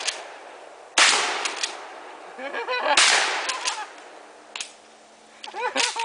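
Two gunshots from a long gun, about two seconds apart, each with a loud echoing tail that dies away over about a second.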